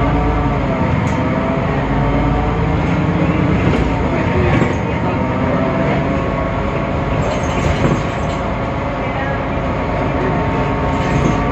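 Temsa Avenue LF city bus driving, its DAF PR 228 diesel engine and ZF Ecolife automatic gearbox making a steady, loud drone of several tones whose pitch rises and falls with speed. The uploader calls this bus's sound strange and unlike the normal sound.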